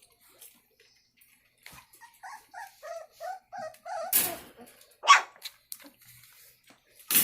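Dog whimpering: a run of short whines, about three a second, then a louder rustle and a single sharp yelp about five seconds in.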